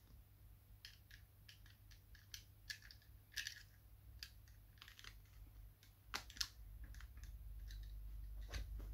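Faint, irregular clicks and scratches of a snap-off utility knife blade nicking a small cross into a leatherette seat cover, with a sharper pair of clicks about six seconds in.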